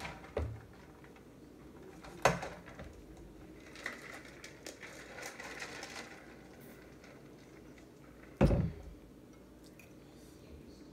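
Drinking through a straw from a plastic tumbler: sharp clicks and knocks as the cup is handled, a soft sipping stretch in the middle, and a heavy thump about eight and a half seconds in as the cup is set down on the table.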